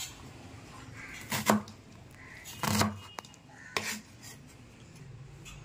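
Steel cleaver chopping a red onion on a wooden board: three loud chops roughly a second apart, with a few lighter taps between.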